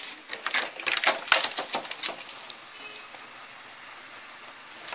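Crackling and clicking of a thin plastic reflector sheet being lifted off an LED TV's backlight panel. There is a dense run of sharp clicks for about the first two and a half seconds, then it goes quieter.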